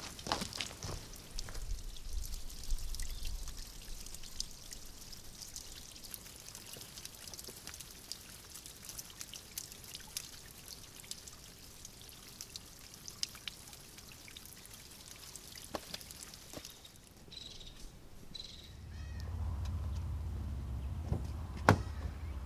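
Water dripping and trickling down a wet, mossy rock face: a steady patter of many small drips over a light splashing hiss. Near the end the water sound gives way to a low steady hum and a single sharp thud.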